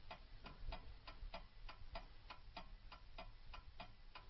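Clock ticking steadily and faintly, about four ticks a second.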